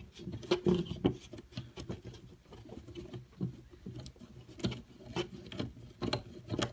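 Thin flathead screwdriver turning a slotted, just-loosened screw out of an RC truck: a run of small, irregular clicks and scrapes as the blade works in the cut slot.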